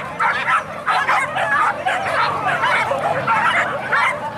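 A pack of boar-hunting dogs yelping and baying over one another, many high yelps overlapping with hardly a pause.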